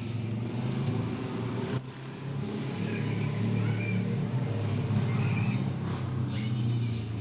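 A blue-crowned hanging parrot gives one short, shrill, very high call about two seconds in, with a few faint chirps later. Under it runs a steady low engine hum.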